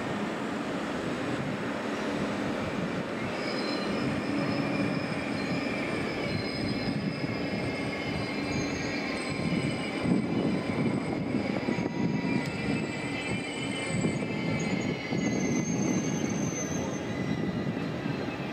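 A slow-moving train's wheels squealing on the rails, several thin high tones coming in about three seconds in and holding over a steady rolling rumble.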